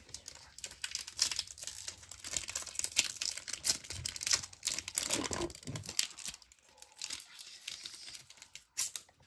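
A baseball card pack's wrapper being torn open and crumpled: dense crinkling and crackling with many quick small snaps.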